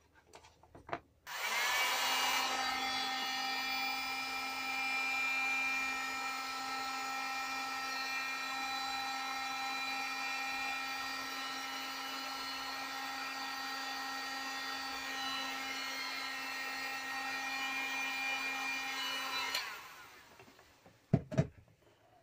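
Handheld electric heat gun running steadily for about eighteen seconds, a constant motor whine that starts about a second in and cuts off near the end, most likely shrinking heat-shrink over cable lugs. Two sharp clicks follow just before the end.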